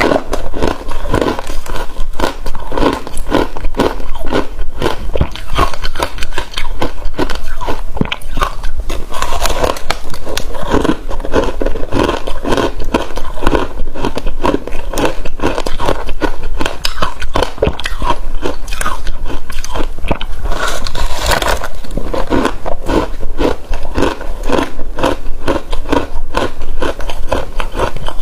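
Frozen passion fruit ice being bitten and chewed close to the microphone: a dense run of loud, crisp crunches that goes on without a break, with a sharper flurry about three-quarters of the way through.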